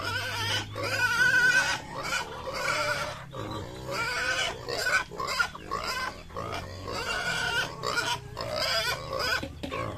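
Several young pigs squealing and grunting at feeding time, a continuous overlapping jumble of high calls, loudest about a second in.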